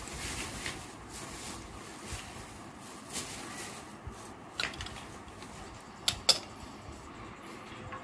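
Sharp clicks of a hand-press pearl setting machine snapping pearl beads onto fabric: one click about four and a half seconds in, then two close together about a second and a half later, the second the loudest. Under them runs a steady low hiss.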